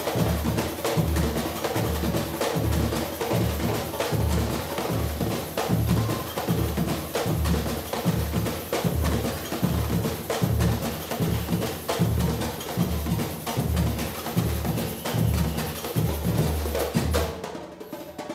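Samba batucada drum ensemble playing live: deep surdo bass drums beat a steady pulse of about two strokes a second under busy higher drum and shaker patterns. The playing stops abruptly near the end.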